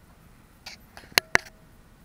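Handling clicks: a soft click a little after half a second in, then two sharp clicks in quick succession just after a second in.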